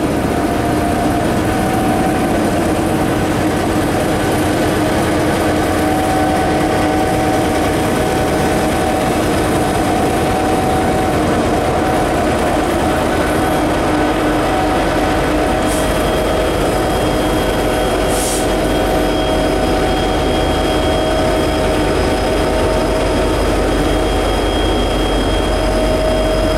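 Norfolk Southern diesel locomotives passing close by, their diesel engines running with a steady, loud drone over the rumble of the moving train.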